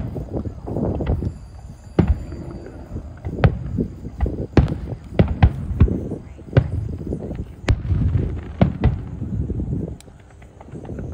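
Fireworks display: aerial shells bursting in a rapid string of sharp bangs and rumbling booms, dying down about ten seconds in.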